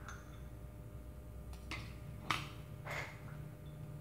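Metal chopsticks clinking against a small ceramic bowl while someone eats from it: three light clinks in the second half, the middle one sharpest, over a faint steady room hum.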